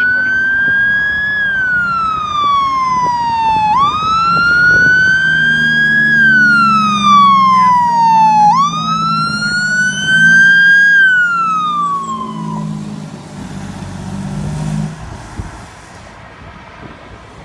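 Fire truck siren wailing in three cycles, each a quick rise then a slow fall, cutting off about twelve seconds in. The truck's engine gets louder as it passes and then fades away.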